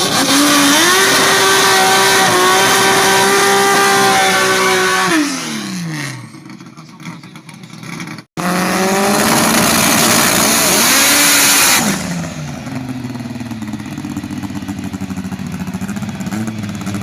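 Turbocharged drag car engines held at high revs during burnouts, with a loud hiss of spinning tyres; the first one's revs fall away about five seconds in. After a sudden cut a second burnout runs at high revs, then settles to a lower, steady engine note about twelve seconds in.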